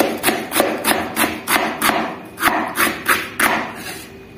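Chef's knife chopping cabbage into shreds on a plastic cutting board: a steady run of blade knocks, about three a second, that stops about three and a half seconds in.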